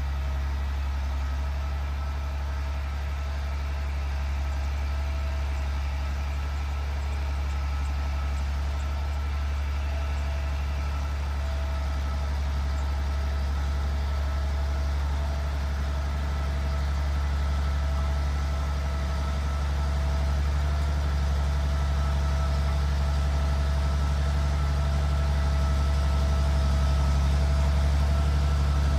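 Galion 118B motor grader's diesel engine running steadily as the machine works its blade through loose dirt, getting gradually louder over the last several seconds as it comes closer.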